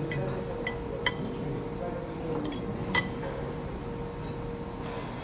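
Metal fork and knife clinking against a ceramic plate and bowl while eating, a few separate clinks with the loudest about three seconds in.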